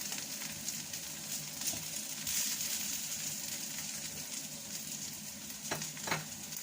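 Fried noodles with vegetables sizzling steadily in a hot pan, in the last stage of stir-frying. Two short knocks come near the end.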